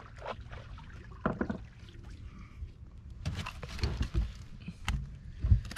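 Scattered knocks and thuds on the wooden deck and sides of a fishing boat as a hooked fish is scooped in a landing net and lifted aboard, over a low steady rumble.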